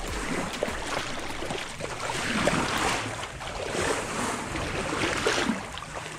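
Sea water washing and splashing, in surges that swell and ease about every second and a half.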